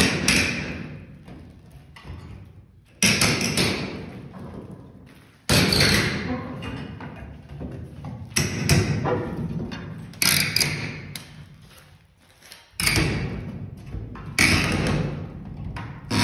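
Claw hammer striking a flat pry bar and wooden slat boards being pried off a wall: about eight sharp knocks, a couple of seconds apart, each dying away over a second or so.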